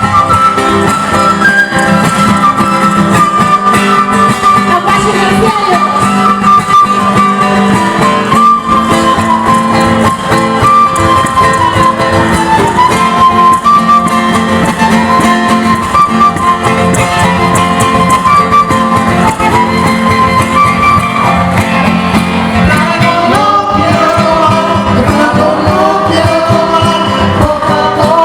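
Loud music: a wavering melody line over a steady accompaniment, playing without a break.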